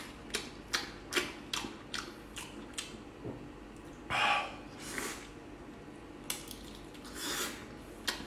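Close-miked chewing of tendon-rich beef knee bone meat: a string of short wet mouth clicks, about two or three a second, then a few longer, noisier mouthfuls about four, five and seven seconds in.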